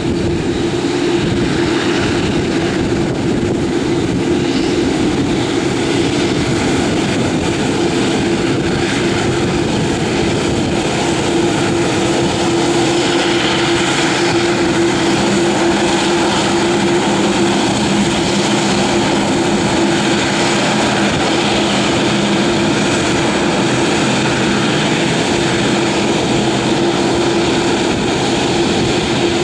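Boeing 787-8 Dreamliner's twin turbofan engines running at taxi power as the jet rolls past: a steady, even jet noise with a constant hum. A second, lower hum joins about halfway through.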